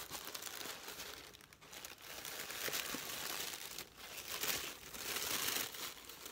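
Tissue paper crinkling and rustling as it is pushed aside by hand, in uneven spells with brief pauses.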